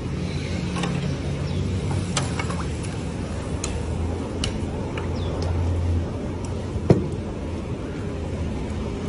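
Scattered clinks and taps of metal ladles and tongs against pots and containers over a steady low rumble, with one sharper knock about seven seconds in.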